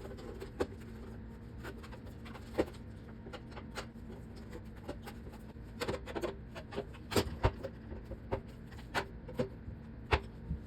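Irregular clicks and taps of screwdrivers prying at the plastic snap tabs that hold a microwave door's outer frame, with small plastic snaps. The clicks come thicker and louder in the second half.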